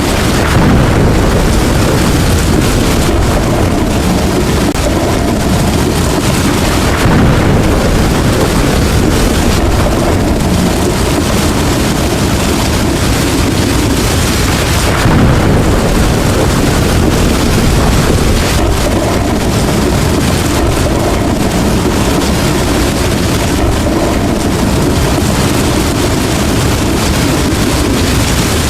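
Heavy rain pouring steadily, under a deep rumble of thunder that swells a few times, about a second in, around seven seconds in and around fifteen seconds in.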